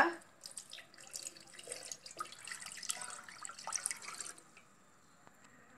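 Milk being poured from a plastic jug into an enamel pot, a splashing, trickling pour that stops about four seconds in.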